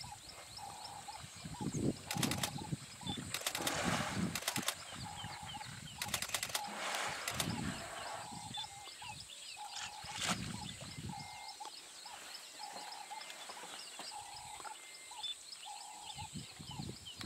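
Water splashing and sloshing in irregular surges as two African elephant bulls wrestle in a waterhole, with a few sharp knocks among the splashes. Behind it, a steady high insect drone and a short call repeating about once a second.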